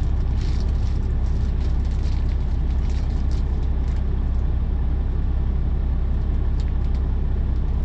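Steady low rumble of a semi truck's diesel engine idling, heard from inside the sleeper cab, with light crinkling of a plastic zip-top bag being handled.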